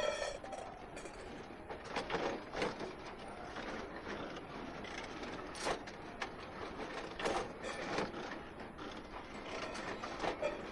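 Irregular mechanical clicking and clattering over a steady background noise.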